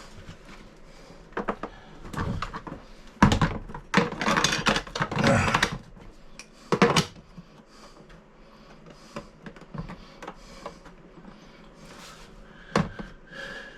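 Knocks and rattling clatter from handling toilet and bidet parts and tools in a small room, densest for a few seconds about a quarter of the way in, then a few single knocks.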